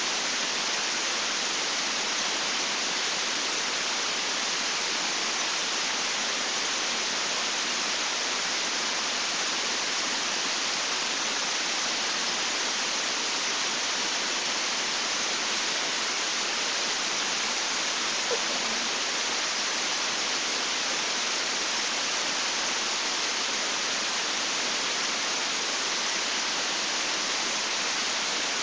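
Steady, even hiss: the noise floor of a built-in webcam microphone. One faint short sound about 18 seconds in.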